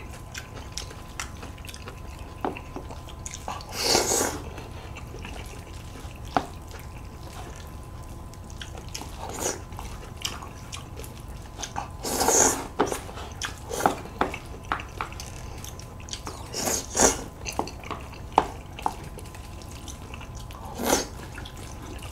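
Close-miked eating sounds: noodles slurped in short bursts about four times, with soft chewing and small clicks of chopsticks and a spoon against bowls in between.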